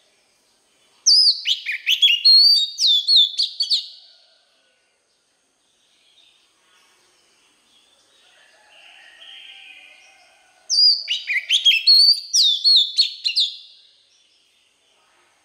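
Male oriental magpie-robin singing two loud phrases of quick, sliding whistled notes, each about three seconds long: one about a second in, the other near the end.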